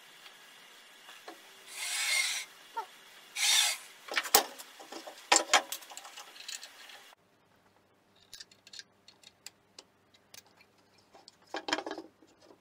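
Metal setup tools on a cast-iron table saw top: two short scraping slides, then a few sharp clicks and knocks, and later light ticks and another brief scrape with a click near the end.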